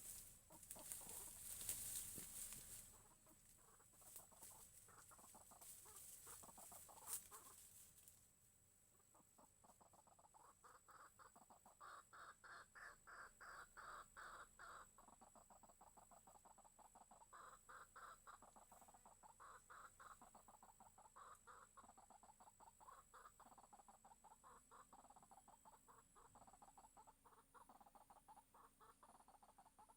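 Faint bird calls: rapid, evenly pulsed clucking notes in repeated bouts, typical of white-breasted waterhens (ruak-ruak), starting about eight seconds in after a stretch of rustling noise.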